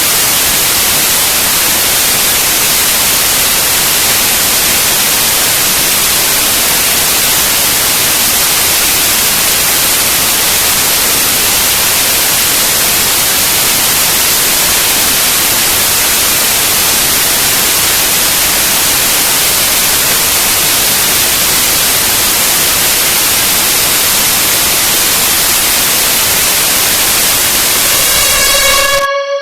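Loud, steady hiss like static, with no rhythm or pitch, cutting off suddenly just before the end, where a plucked musical note begins.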